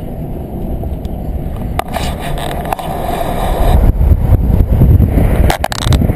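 Low road and wind rumble from a moving car picked up by an action camera's microphone, growing louder about two thirds of the way through as the car speeds up, with a few sharp knocks.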